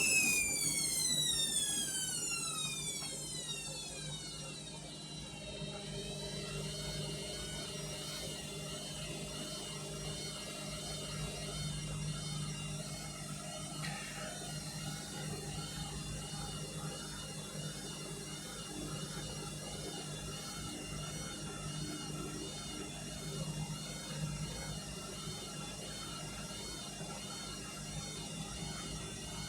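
Washing machine motor whine falling steadily in pitch over the first four or five seconds as the drum slows down, then settling into a steady low hum with a faint wavering whine above it.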